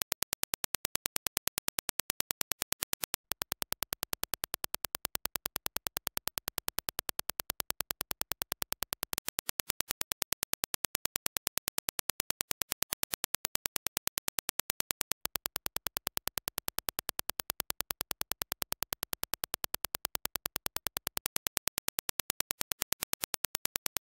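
A fast, evenly spaced train of sharp clicks, several a second, with short breaks about three seconds in and again around fifteen seconds. It is the reference Dirac impulse test signal, played over and over for a headphone transient-response test.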